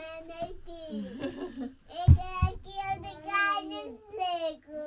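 A young child singing in a high, wavering voice. Two dull thumps of firewood logs being handled come about two seconds in.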